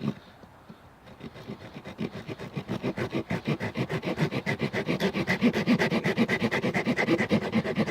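Leatherman Super Tool 300's multitool saw blade sawing through wood in quick back-and-forth strokes, about four or five a second. It starts about a second in and grows louder as it bites in.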